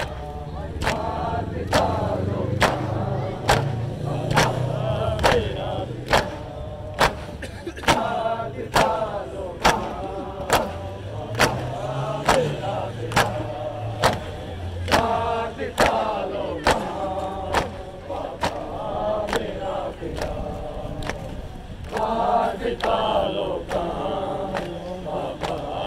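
A group of men chanting an Ashura mourning lament in unison, with sharp hand slaps of matam (chest-beating) in time. The slaps come a little more than once a second, evenly.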